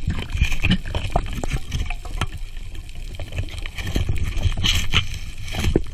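Underwater sound at the camera: a low rumble of moving water with many scattered clicks and crackles, a few louder clicks near the end.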